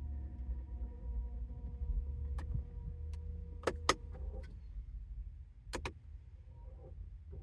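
2017 BMW 540i with a low steady rumble and a faint steady hum, broken by sharp clicks: a close pair a little under four seconds in and another near six seconds. The rumble fades after the second pair.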